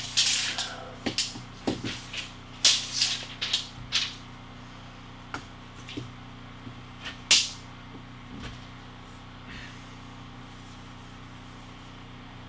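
Steel tape measure being pulled out and extended, the blade rattling and clicking in a quick run of sharp clicks over the first few seconds. A few single clicks follow, the loudest about seven seconds in, over a steady low hum.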